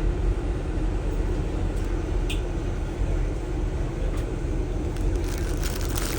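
Moving train with a steady low rumble throughout, and a brief faint high squeak about two seconds in.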